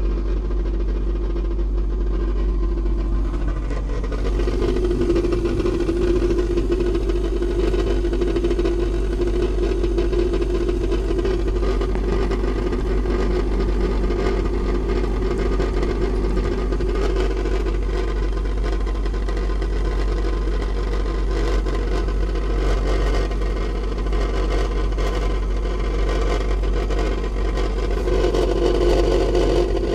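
Hermetic refrigeration compressor of a Technoblock unit running with a loud, steady hum and vibration. Its internal suspension is broken, yet it keeps running.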